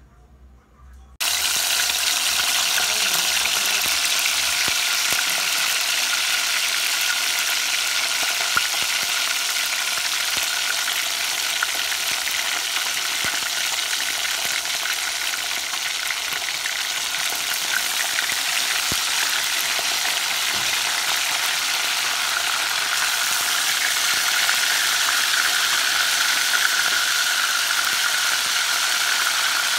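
Whole seasoned tilapia frying in a pan of hot oil: a loud, steady sizzle that starts abruptly about a second in.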